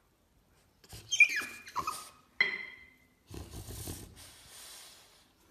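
French bulldog whining: three short high cries that fall in pitch, one after another, then a longer, rough, noisy grumble.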